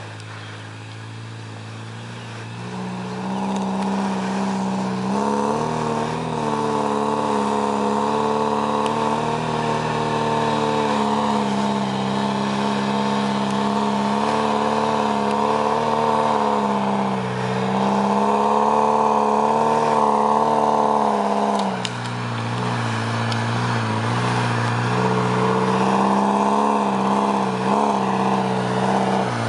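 UAZ off-road vehicle's engine running with changing revs. It picks up a couple of seconds in and wavers up and down, then eases off about two-thirds through and picks up again.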